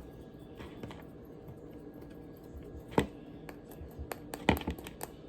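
Scattered clicks and taps of small objects being handled, the loudest about three seconds in and a quick cluster about a second and a half later.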